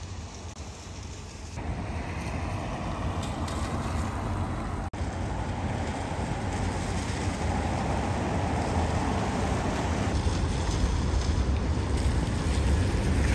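City traffic on rain-wet streets: a steady low rumble of engines with tyre hiss on the wet road. The noise gets louder about a second and a half in.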